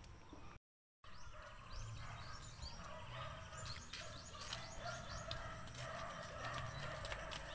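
Backyard birdsong: a rapid run of high, quick chirps in the middle of the clip, over lower calls from domestic fowl and a low rumble. The sound drops out completely for about half a second near the start.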